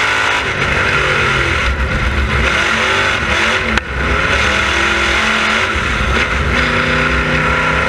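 Dirt-track race car's engine running hard, heard from inside the cockpit, its pitch falling as the throttle is lifted and rising again as it is reapplied. A single sharp click comes a little under four seconds in.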